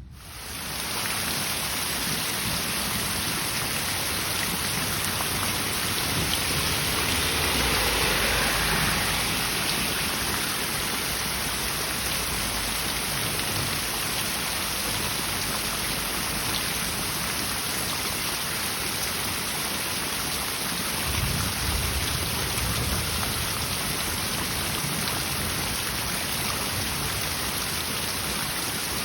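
Heavy rain falling steadily, with low rumbles swelling about eight seconds in and again a little past twenty seconds.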